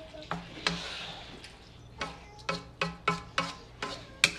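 Spatula scraping and knocking against a wok while thick glutinous rice cooked down in coconut milk is stirred: sharp strokes, a couple near the start, then about three a second from about halfway on.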